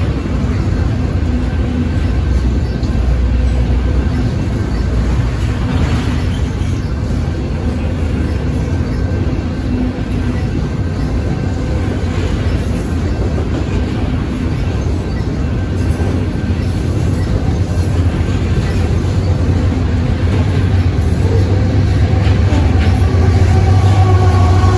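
Freight train's autorack cars rolling steadily through a grade crossing: a continuous wheel-on-rail rumble. Near the end a mid-train GE AC4400CW diesel locomotive pulls in, and its engine adds a stronger low hum with several steady tones.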